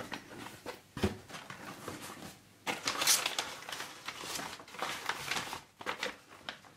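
Brown kraft packing paper rustling and crinkling in irregular bursts as hands push and fold it aside inside a cardboard box, with a light knock about a second in.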